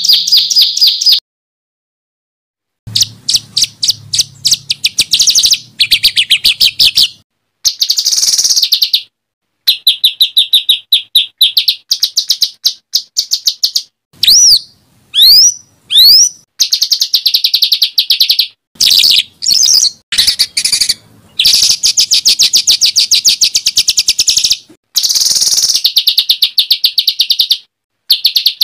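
Recorded songbird song of the harsh, loud rapid-fire kind used as a tutor recording for competition cage birds. It runs as fast trills of repeated notes, with a few sharp rising whistles about halfway through, broken by abrupt silent gaps between spliced phrases.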